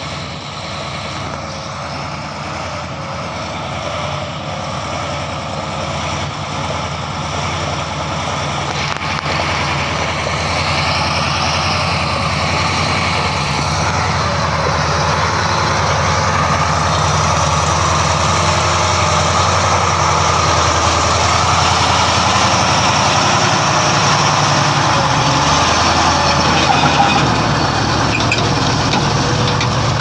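Ural-4320 6x6 truck's diesel engine running as the log-loaded truck crawls through deep mud, getting steadily louder as it comes closer.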